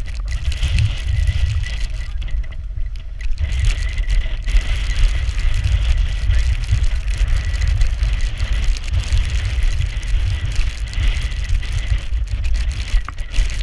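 Wind buffeting the microphone of a pole-held camera: a loud, gusting low rumble that rises and falls without a break, with a faint steady high tone above it.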